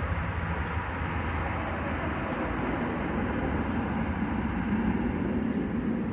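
Steady low rumble of vehicle traffic, growing a little louder near the end.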